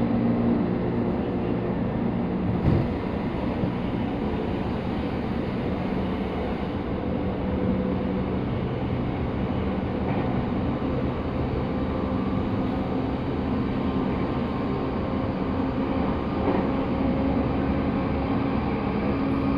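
Inside an E217-series electric commuter train running along the line: a steady rumble of wheels on rail with a low hum from the traction motors. There is one short knock about three seconds in.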